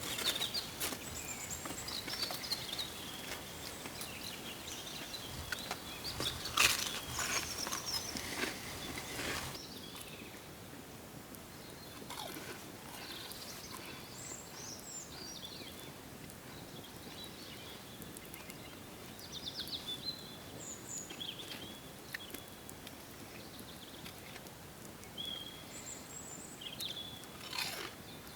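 Outdoor ambience with close crunching and clicking noises for the first ten seconds or so, the loudest crack about six and a half seconds in, then quieter with small birds chirping now and then.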